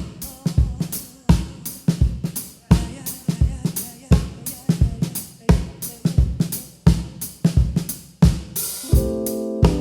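Live drum kit playing a break, with kick, snare, hi-hat and cymbal hits in a steady rhythm. Held keyboard chords come in near the end.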